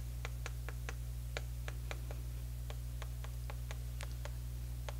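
Chalk writing on a chalkboard: a string of sharp, irregular taps, about three a second, as each stroke strikes the board, over a steady low hum.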